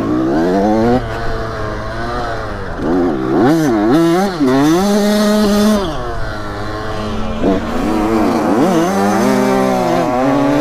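Dirt bike engine revving under the rider, its pitch climbing and dropping several times with throttle and gear changes, with steadier stretches in between.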